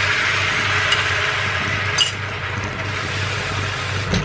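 Duck feet and lotus root sizzling in a hot stainless steel pan as water is poured in from a bowl, the hiss thinning out about halfway through. A light click about a second in and a sharp metallic clink about two seconds in.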